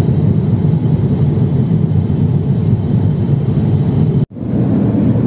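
Steady low rumble of an Airbus A350-1000 passenger cabin in flight: engine and airflow noise. About four seconds in, the sound cuts out for an instant and then returns at the same level.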